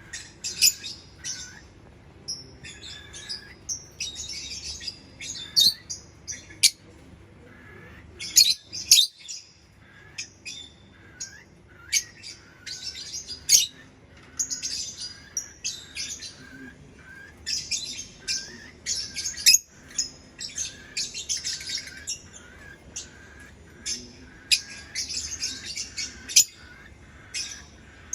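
Lovebirds chirping: sharp, high chirps in quick irregular runs throughout, with a few louder single squeaks standing out.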